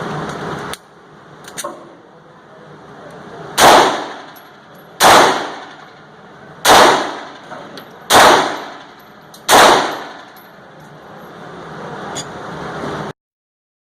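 Sig Sauer P250 9mm pistol fired five times, about a second and a half apart, with Speer Gold Dot 9mm Luger rounds. Each shot rings out briefly as the slide cycles the next round.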